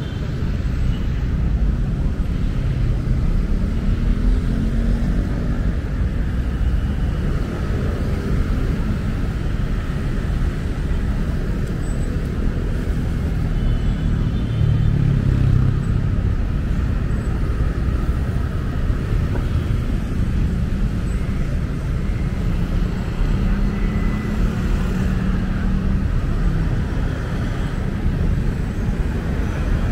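Heavy city road traffic: cars, buses and motorcycles passing in a steady rumble. Now and then a single engine swells and fades as it goes by, loudest about halfway through.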